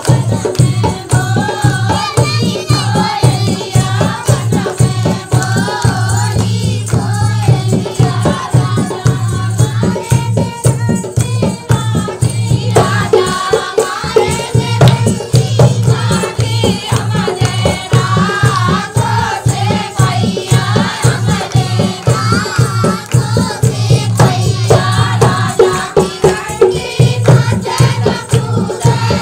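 Dehati folk dance song: singing over a fast, steady percussion beat with a rattling, jingling edge.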